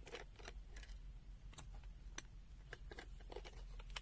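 Faint, irregular small clicks and taps of a plastic multimeter case being handled, its stand and battery cover being worked.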